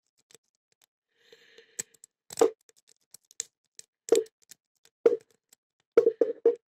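Lock-picking rake and tension wrench being worked in a small brass padlock, giving a faint scratching and then irregular sharp metal clicks and knocks about a second apart, with a quick run of three near the end.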